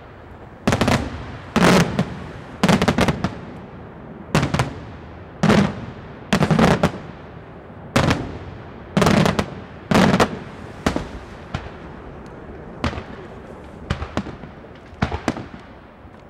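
Daytime aerial fireworks shells bursting overhead: a run of loud bangs, roughly one a second, several coming as quick clusters of cracks, each with a short rolling echo.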